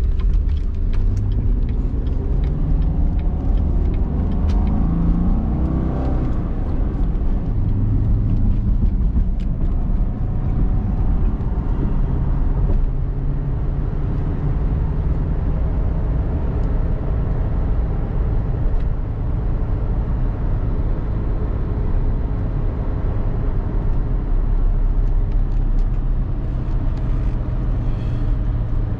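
A car engine running, its pitch climbing over the first six seconds or so, then settling into a steady, deep hum.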